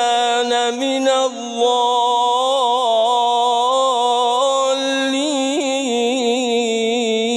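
A man reciting the Quran in a drawn-out melodic tilawa. It is one unbroken phrase of long held notes, with wavering vocal ornaments in the second half.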